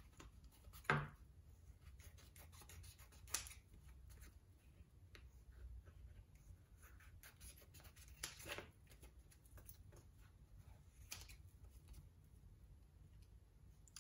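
Faint, irregular snips of scissors cutting through a sheet of craft foam paper, with a few louder clicks of the blades among them.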